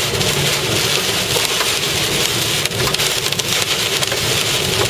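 Heavy wind-driven rain pelting a vehicle's windshield and body, a loud, steady rush of rain and wind with a flurry of sharp ticks of impacts on the vehicle about three seconds in.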